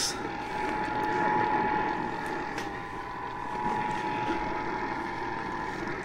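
AM radio receiver playing an Emergency Alert System broadcast for a severe thunderstorm warning: a steady mid-pitched alert tone through heavy static hiss, cutting off near the end.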